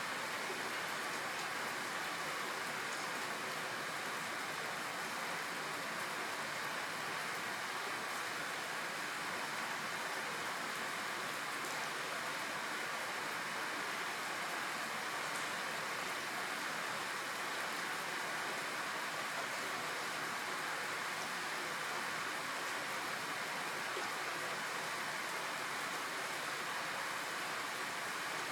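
Steady rain falling, an even hiss of rain that holds unchanged.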